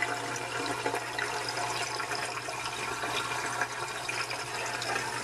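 Water from the algae turf scrubber's slot pipe running and splashing down the screen in a steady, even rush, under a constant low hum.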